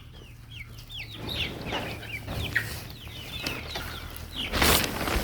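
A flock of young layer pullets cheeping and clucking, many short falling calls overlapping. A brief burst of noise near the end, louder than the birds.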